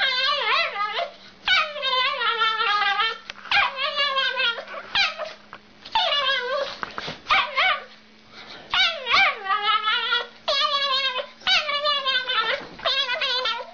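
Small dog giving a rapid string of barking, yowling calls, each under a second long, with a pitch that wavers up and down, with only brief gaps between them.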